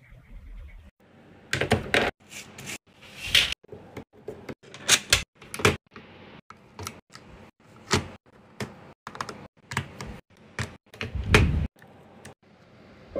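Keys of a mechanical keyboard clacking under typing, irregular sharp clicks with a few quicker runs of keystrokes.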